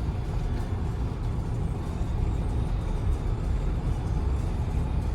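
Steady low road rumble of a car driving on the highway, tyre and engine noise heard from inside the cabin.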